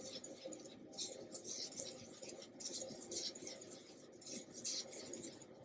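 Dry ground spice powder being mixed in a small stainless steel bowl: a faint, gritty swishing that comes in soft rushes about once a second.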